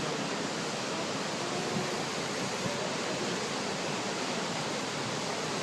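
Steady rushing of whitewater at the Potomac River's Great Falls: an even wash of noise from the falls and rapids that holds level throughout.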